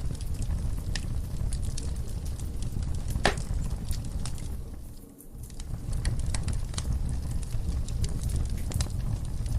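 Wood fire burning in a fireplace, crackling with frequent sharp pops over a low rumble. The sound dips briefly about five seconds in, then returns.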